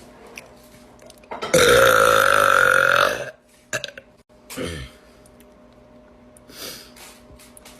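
A long, loud burp lasting about a second and a half at a steady pitch, followed about a second and a half later by a short sound gliding down in pitch.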